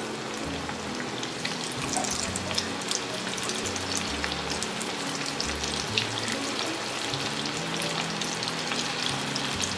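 Marinated squid pieces deep-frying in hot oil in an iron kadai: a steady sizzle full of small crackles and pops, with more pieces dropped into the oil near the end. Soft background music plays underneath.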